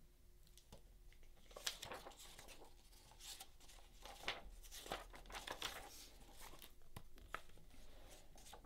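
Faint, irregular rustling and crinkling of paper as a picture book is opened and its pages and a loose paper sheet are handled.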